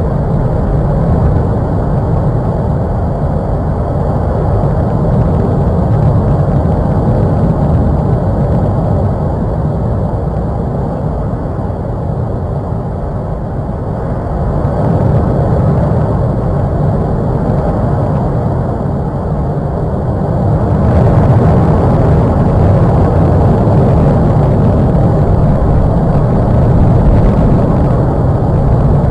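A steady, loud low rumble with no distinct events, dipping slightly near the middle and swelling again about two-thirds of the way through.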